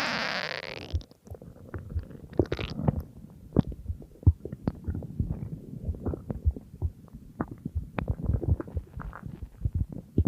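Human stomach growling: a dense, irregular run of short gurgles, squelches and pops. A hissing sound fades out over the first second.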